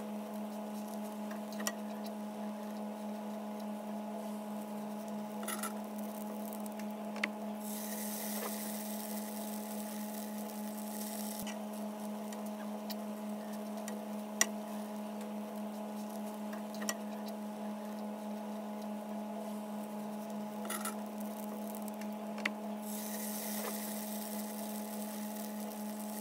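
Pumpkin fritters frying in a nonstick pan over a steady electric hum, with light clicks of a metal fork and spoon against the pan as they are turned and rolled. The oil sizzles in two stretches: once about eight seconds in, and again near the end as fresh batter goes into the pan.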